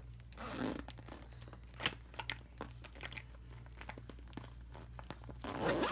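Clear plastic pocket of a makeup bag crinkling as hands push cosmetics into it, with a few small clicks and knocks of the containers and a louder rustle near the end.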